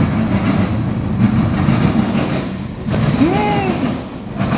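Freight cars of a CSX mixed freight train rolling past at steady speed: a continuous low rumble and wheel-on-rail noise. About three seconds in there is a short click, then a brief pitched tone that rises and falls.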